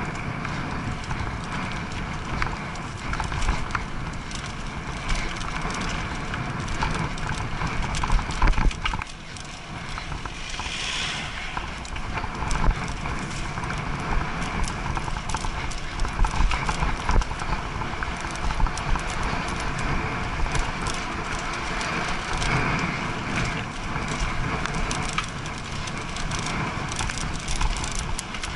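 Mountain bike riding over a bumpy dirt-and-grass track: a constant dense rattling and knocking of the bike over the ruts, with a low rumble underneath.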